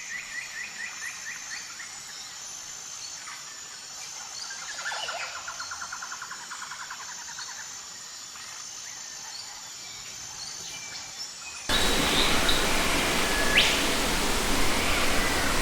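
Birds calling in rapid trills, a fast series near the start and a lower trill about five seconds in, over faint steady high-pitched insect-like tones. About twelve seconds in, the sound cuts abruptly to a much louder steady rushing noise, through which a bird gives one sharp rising whistle.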